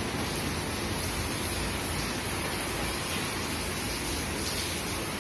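Steady rain falling on wet paving: an even hiss with no breaks.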